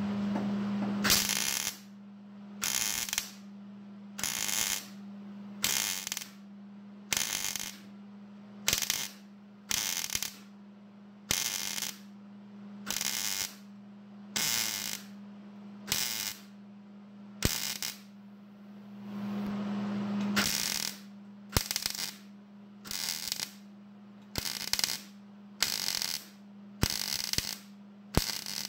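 Welder laying short stitch welds on the sheet-metal truck bed floor: about eighteen crackling bursts of roughly half a second each, around one and a half seconds apart, with one longer weld a little before two-thirds of the way through. The short bursts keep the heat down to avoid warping the thin bed floor. A steady hum runs underneath.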